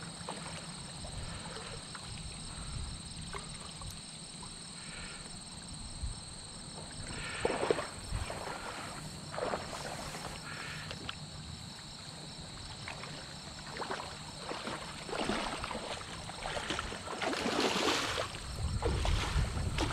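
Water splashing as a hooked chinook salmon thrashes at the surface of a shallow creek: a few scattered splashes at first, then longer, louder splashing near the end.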